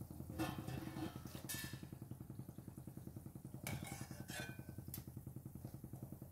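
Steel slotted spoon and wire strainer clinking against a steel kadhai several times as fried pieces are lifted out of the oil. Under the clinks runs a steady low hum.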